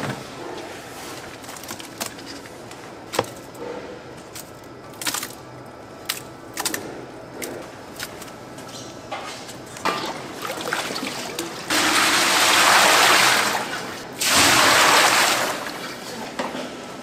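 Scattered light knocks and scrapes of a metal bowl against plastic tubs, then two loud rushes of pouring water, about two seconds and a second and a half long.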